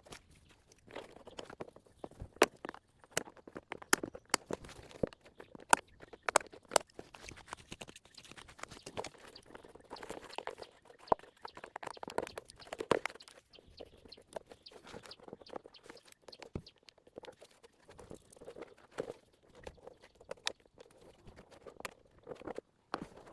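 Dry grass and weeds rustling and crunching as they are cleared by hand, with scattered sharp clicks and snaps, several close together a few seconds in.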